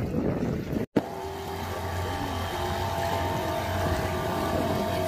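Outboard motor on a small open fishing boat running steadily as the boat pulls away from the dock. It comes in after a short break in the sound about a second in; before that there is only wind and water noise.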